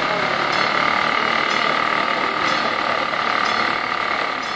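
Level-crossing warning signal ringing steadily, a continuous two-tone ring with a faint stroke about once a second, over street noise.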